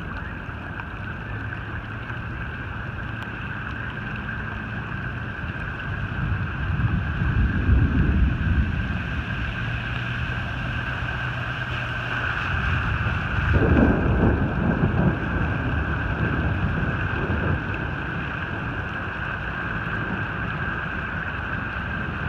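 Wind buffeting the microphone over a steady rushing hiss, with two louder low gusts about seven and fourteen seconds in.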